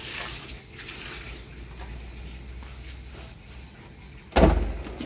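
Bleach wash water sloshing and draining out of a blue plastic drum as it is tipped, with one loud thump about four and a half seconds in as the drum is moved.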